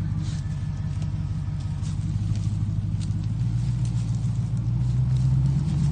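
Off-road SUV engine running low and steady at crawl speed, getting louder about three seconds in as throttle is added to ease the truck forward over rocks.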